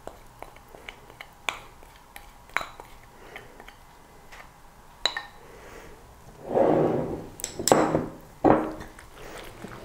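Wooden spoon tapping and scraping against a small ceramic bowl as thick ground-flaxseed sauce is emptied out, with scattered light clicks. Near the end comes a louder scrape and a few ceramic clinks as the bowl and spoon are set down among the plates.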